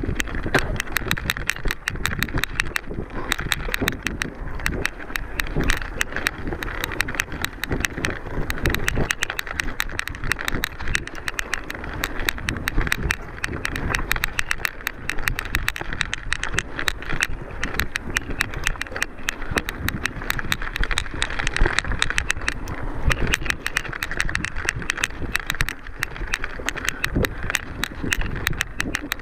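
Mountain bike being ridden over rough trail, filmed from the bike itself: a continuous fast clicking and rattling from the bike, over low rumble.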